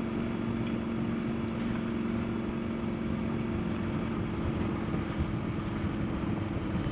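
Triumph Scrambler 1200's parallel-twin engine running at a steady, unchanging pitch as the motorcycle cruises slowly, over a low rumble.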